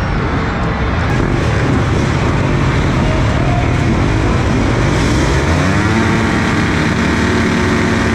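Dirt bike engines revving, the pitch climbing and falling as the throttle opens and closes, most clearly in the second half.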